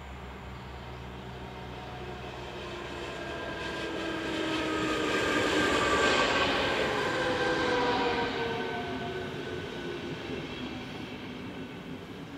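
ČD class 471 CityElefant double-deck electric multiple unit passing by. Its running noise and motor whine grow louder, peak about halfway through as it goes past, then fade, while several whining tones slide down in pitch.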